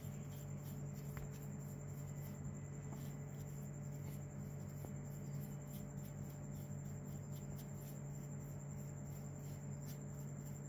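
Bristle brush scrubbing inside a plaster mould, a faint scratchy sound in quick repeated strokes, about three a second, over a steady low hum.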